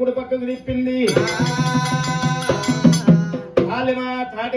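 Oggu Katha accompaniment: a large steel-shelled drum and small hand cymbals strike up with singing for about two and a half seconds, starting about a second in. Before and after it, a man's spoken narration runs over a steady drone tone.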